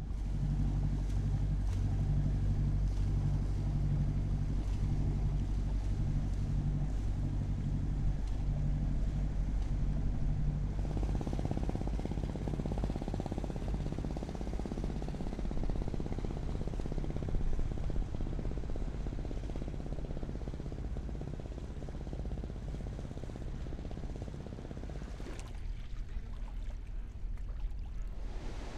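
Small open fishing boat's motor running with a low, steady hum, mixed with the rush of wind and water. The sound changes twice: at about 11 s the hum gives way to a broader rushing noise, and it drops to a quieter rush near the end.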